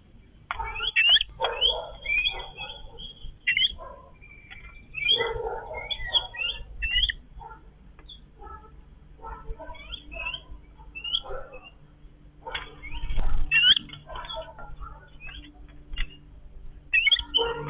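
Yellow-billed babblers calling in several bursts of short notes that bend up and down, with quieter gaps between bursts and scattered clicks.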